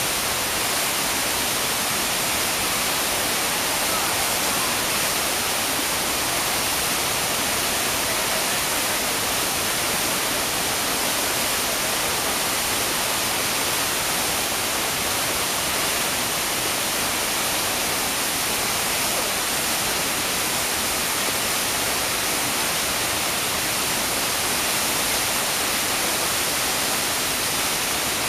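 Iguazú Falls' waterfalls crashing into the gorge: a steady, unbroken rush of falling water, heavier in hiss than in rumble.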